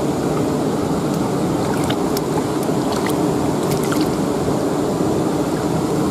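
River water rushing steadily past rocks, with a few faint clicks.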